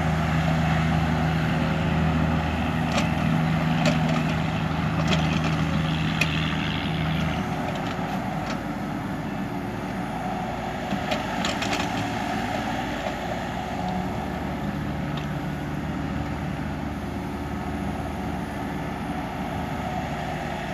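Kubota U35 mini excavator's diesel engine running steadily under hydraulic load as the bucket drags soil to shape a slope, with scattered sharp knocks from the working arm and bucket. The engine note drops back after about seven seconds.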